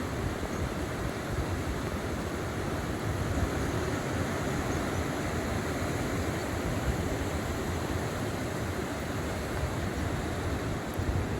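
Steady roar of heavy surf, with wind rumbling on the microphone.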